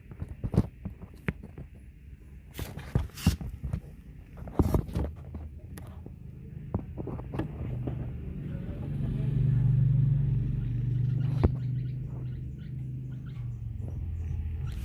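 Scattered knocks and clatter, then a low rumble with a steady hum that swells, is loudest about ten seconds in, and eases off.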